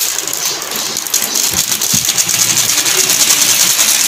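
Foil spice-mix packets crinkling and rustling as tikka masala powder is shaken out of them into a steel pot: a steady, crackly high rustle with a couple of faint knocks.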